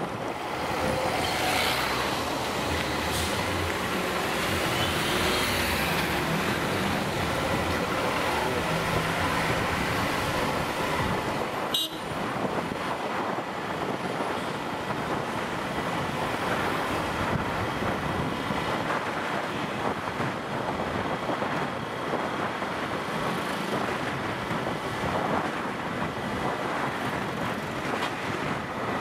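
Motorcycle riding on a wet road: engine running under steady wind noise on the microphone and tyre and traffic noise.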